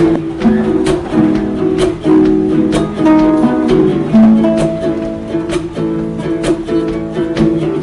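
Background music: a plucked-string melody over a steady beat of about one stroke a second.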